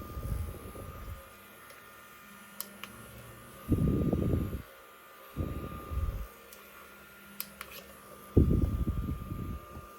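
Mini desktop fan running with a steady high whine, its airflow buffeting the microphone in four rumbling gusts, with a few faint clicks between them.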